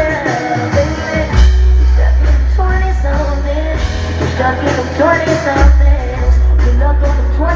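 Live band music with a female lead singer: her voice carries the melody over guitar and long held deep bass notes, with the bass note changing about two thirds of the way through. Recorded on a phone from within the audience.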